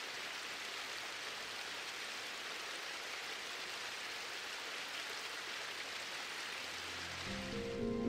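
A steady, even rushing hiss of water, like rain. Soft music with held notes fades in near the end.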